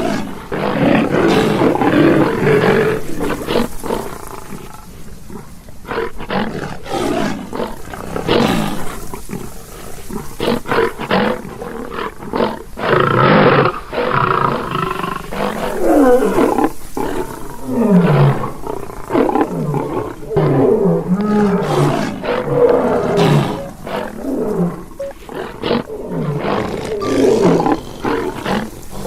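Lion (Panthera leo) roaring and growling in a long string of calls, one bout after another, several of them falling in pitch.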